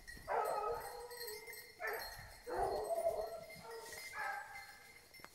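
Hunting hounds baying on the trail of wild boar: four drawn-out, pitched bays in a row, a short pause between each.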